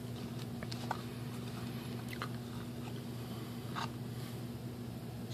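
A few faint small clicks and taps as fingers move small servo screws about on a sheet of paper, over a low steady room hum.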